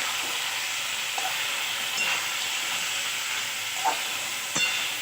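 Chicken frying in a pan with onion and spices: a steady sizzle, with a few light clicks.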